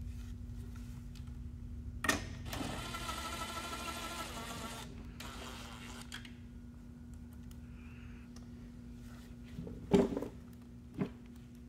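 DeWalt cordless drill running once for about two seconds, driving a screw back into the belt sander's plastic housing, with a sharp click just before it and a couple of knocks near the end. A steady low hum runs underneath.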